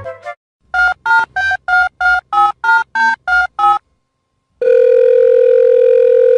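Telephone keypad dialing: ten short two-note touch-tone beeps, about three a second, then a steady tone held for about two seconds.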